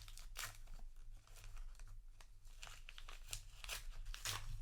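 Paper trading-card booster pack wrappers and cards being handled: an irregular run of crinkling and rustling.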